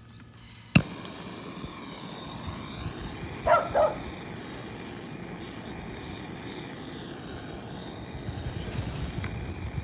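MAPP gas hand torch lit with a sharp click of its igniter, then the flame runs with a steady hiss. A dog barks twice, quickly, about three and a half seconds in.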